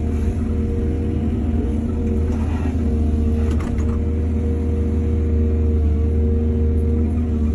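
Heavy diesel engine of an excavator running steadily under load, with a brief scraping clatter from about two to four seconds in.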